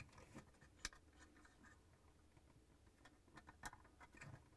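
Near silence with faint handling noise as wire connectors are pushed into a refrigerator LED light module: light scraping and a few small clicks, the two clearest about a second in and near the end.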